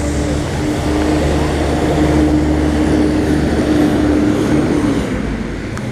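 A motor or engine running with a steady, even-pitched drone, growing a little louder and then fading near the end.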